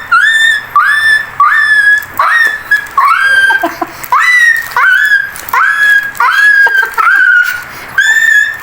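A person imitating a stuck dog yelping in pain: a rapid run of high-pitched yelps, about two a second, each sliding sharply up and then held briefly.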